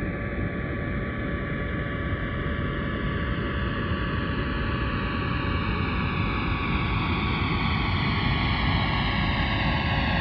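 Jet airliner engine noise: a steady rushing roar with several high, steady whining tones, growing slowly louder, with a hollow sweeping quality that drifts down in pitch.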